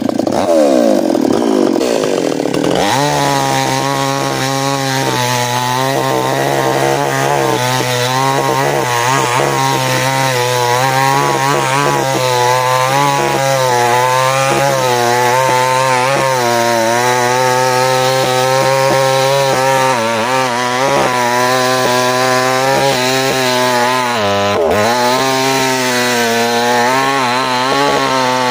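Small petrol chainsaw cutting into an ironwood trunk. The engine's pitch wavers for the first few seconds, then holds high and steady under load, with a brief dip near the end.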